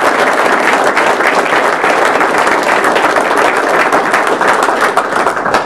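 A group of people applauding, many hands clapping steadily; the applause cuts off suddenly near the end.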